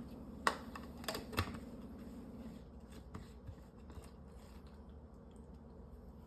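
Sharp clicks and knocks of containers handled on a kitchen counter, the three loudest within the first second and a half, then fainter ticks as a shaker bottle's lid is screwed on.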